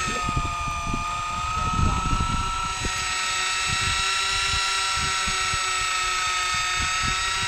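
Electric fishing reel's motor whining steadily as it winds in line, starting with a quick rise in pitch and then holding one pitch. Low wind rumble underneath.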